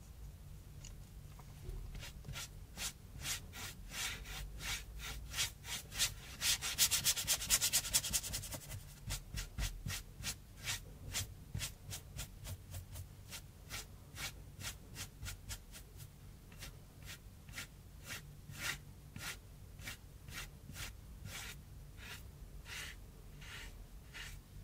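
Paintbrush stroking gouache across a rough cardboard sheet in short, scratchy strokes, about two a second. A fast flurry of scrubbing strokes comes about six to eight seconds in.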